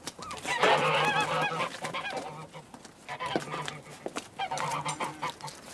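A small flock of domestic geese honking, several calling over one another in bouts: the loudest burst comes about half a second in, with further bouts around three seconds and again near the end.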